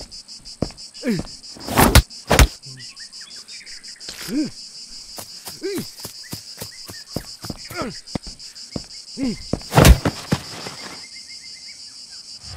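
Insects chirring steadily in a fast pulsing rhythm, over which come a few loud sharp thuds (around two seconds in and again near ten seconds) and a man's short groans.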